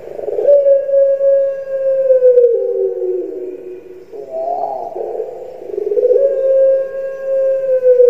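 Puter pelung (Barbary dove) cooing: two long drawn-out coos, each a held note that sags and steps down in pitch at its end, with a shorter wavering note between them about four seconds in.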